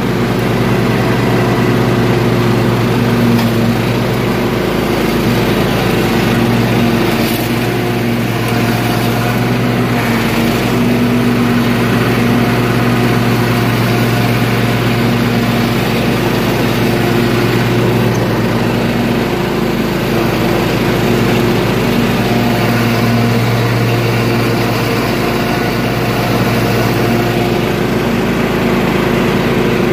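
Toro riding lawn tractor's engine running at a steady speed while mowing grass, with its pitch shifting slightly now and then.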